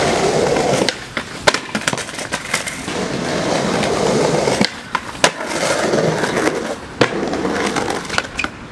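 Skateboard wheels rolling over stone paving, the rolling broken three times by loud, sharp clacks of the board, with lighter clicks and knocks in between.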